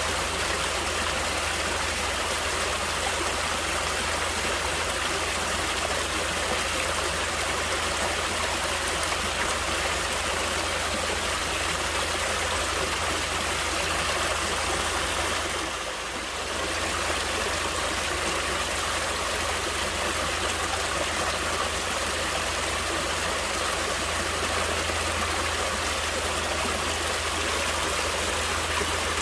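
Natural running water flowing steadily, with a brief dip in level about sixteen seconds in.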